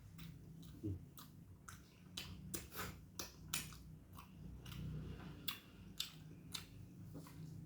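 Close-up chewing of a nasi Padang meal: irregular wet smacking and soft crunching of rice, chicken and vegetables, many short clicks a second.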